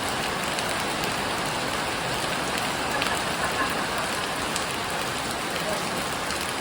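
Heavy rain falling steadily, with water pouring off a house roof and scattered drops striking.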